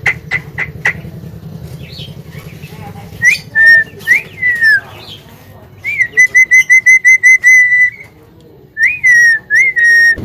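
Javan myna whistling. Short chirps, then a few swooping whistles, then twice a rising note followed by a rapid run of short, even whistles at one pitch.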